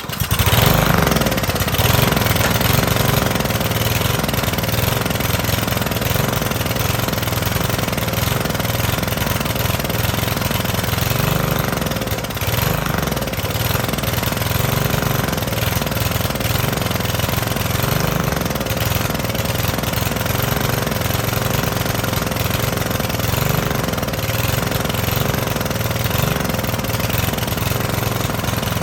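The Cub Cadet LE 100 edger's 159cc single-cylinder engine catches and runs on choke, with small surges in its speed. The owner puts the unevenness down to old fuel still in the tank that it is trying to burn through.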